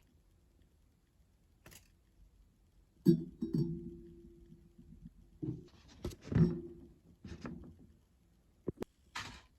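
Metal cookware being handled: several clanks, loudest about three seconds in and again about six seconds in, each leaving a brief ringing tone.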